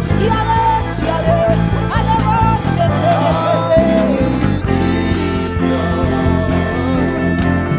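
Live church worship band music: a wavering melody line over sustained bass notes, with no words.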